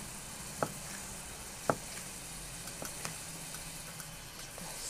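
Kitchen knife cutting red bell pepper on a wooden end-grain board: a few sharp knocks of the blade on the wood, the two strongest about half a second and a second and a half in, with fainter ones later. Under them, a steady faint sizzle of chopped onion frying in oil in a pan.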